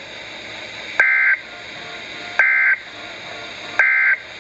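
Three short, identical bursts of EAS/SAME digital data tones, about a second and a half apart: the End Of Message signal that closes a NOAA Weather Radio alert. Steady radio hiss lies underneath.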